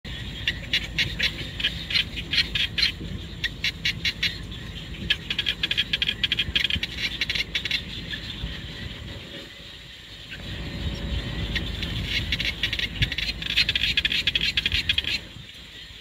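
Outdoor chirping in quick trains of high pulses, several a second, over a steady low rumble. The chirping pauses around the middle and cuts off shortly before the end.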